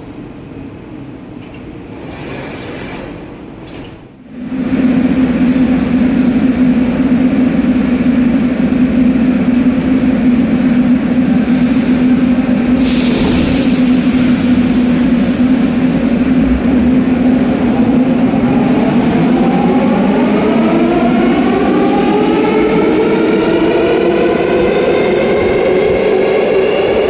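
Metrowagonmash 81-series metro train running through the station: a loud steady rumble with a low hum, then, from about two-thirds of the way in, a whine in several tones that rises steadily as the train's traction motors accelerate it. The first four seconds are a quieter train sound that stops abruptly.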